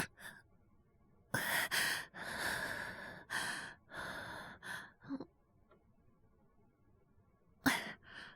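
A man's acted breathing as an IV needle goes in: two quick sharp breaths, then several longer breaths, a pause, and another quick sharp intake of breath near the end.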